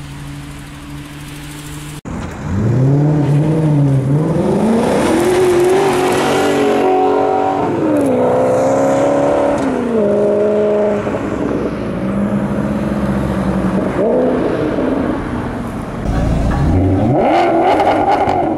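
Maserati GranTurismo S 4.7-litre V8 exhaust accelerating hard through the gears, its pitch climbing and dropping back at each upshift, then holding a steady lower note. Near the end a quick sharp rev with a few cracks from the exhaust.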